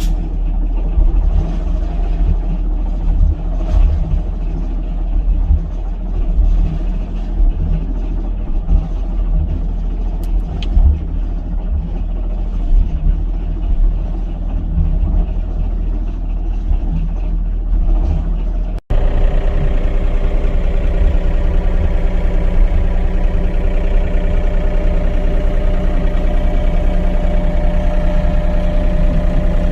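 Excavator's diesel engine running, rising and falling in level as the machine works. After an abrupt cut about nineteen seconds in, it settles into a steadier drone at a fixed pitch.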